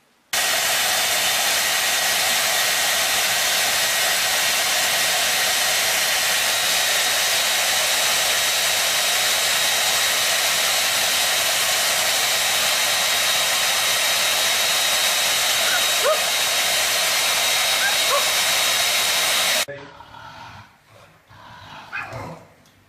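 Handheld electric appliance with a small motor and rushing air running steadily at one constant pitch with a faint whine, starting and stopping abruptly. Two brief, faint rising cries sound over it near the end.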